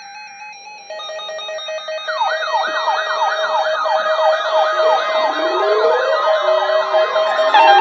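Several weather alert radios sounding their alarms at once as an Emergency Alert System alert is received: a cluster of steady beeping tones, joined about two seconds in by fast repeating siren-like sweeps, about four a second, with more alarm tones joining near the end as the whole grows louder.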